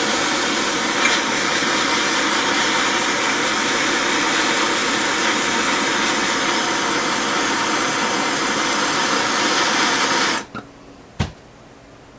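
Heat gun blowing steadily, heating the light's tight inner bushing to free it. It shuts off about ten seconds in, and a single sharp click follows a moment later.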